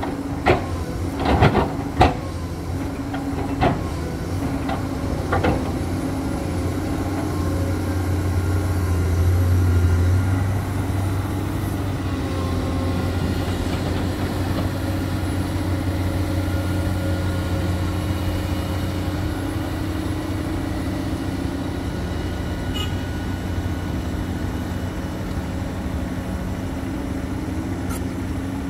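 Komatsu PC210 hydraulic excavator's diesel engine running, with a few sharp knocks in the first five seconds or so as the bucket bears down on the steel sheet piles. After that the engine runs as a steady drone that grows louder for a moment about ten seconds in as the machine works its boom and tracks.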